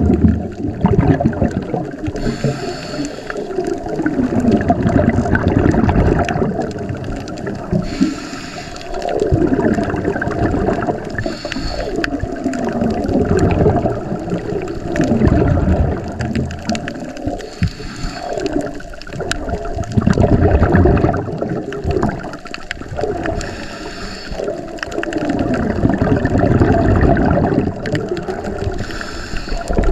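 Scuba diver breathing through a regulator underwater, heard through the camera housing: long gurgling rushes of exhaled bubbles that come back every few seconds, with a short hiss of each inhale in between.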